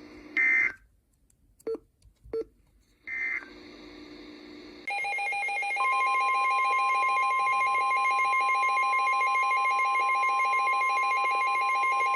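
Emergency Alert System tones: two short, high-pitched digital data bursts a few seconds apart, then, about five seconds in, the loud steady attention signal starts, a harsh dual tone, with another steady tone joining about a second later.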